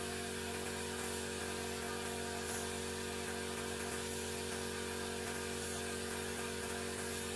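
Compressed-air paint spray gun hissing steadily over the constant hum of the air compressor's motor.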